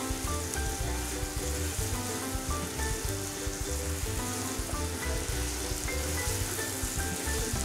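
Ground spice paste sizzling as it fries in hot oil in a frying pan, stirred with a wooden spatula, over background music with a steady beat.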